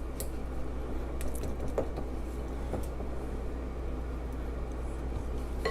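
Soft, irregular clicks and light scrapes of a utensil working in a mixing bowl of cookie batter, over a steady low hum.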